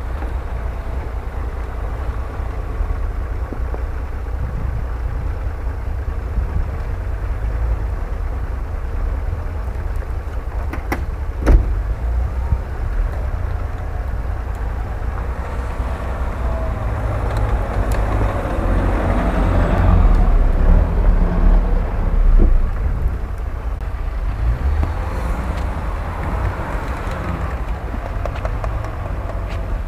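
Off-road 4x4 engines running as they drive through deep snow. A Mitsubishi L200 pickup's engine revs harder and louder as it pushes past, loudest about two-thirds of the way through. There is a single sharp knock about a third of the way in.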